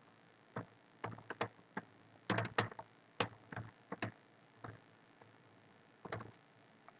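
Computer keyboard keystrokes: irregular clicks, some in quick runs of two or three, with short pauses between.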